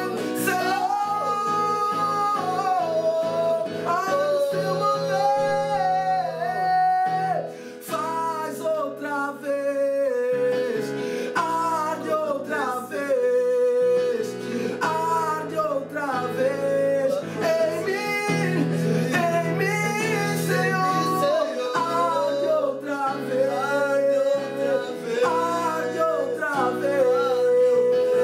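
A worship song: a singing voice carries a melody over guitar and held low bass notes.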